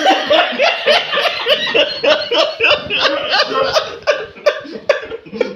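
A person laughing hard and without a break, in quick repeated bursts of about four or five a second.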